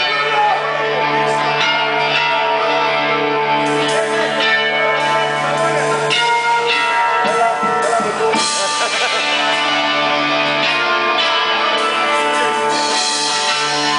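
A live band playing without singing, led by electric guitar over bass and drums.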